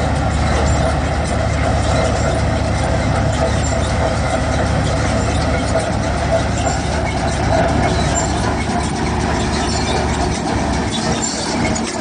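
Punni groundnut combine harvester running steadily under load, its engine and threshing machinery working as the tine pickup reel gathers windrowed groundnut plants.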